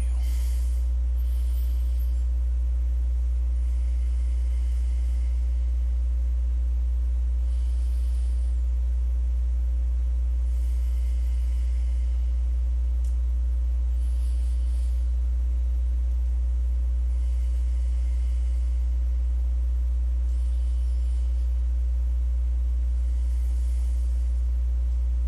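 A steady low hum that does not change, with faint slow breaths every three to four seconds.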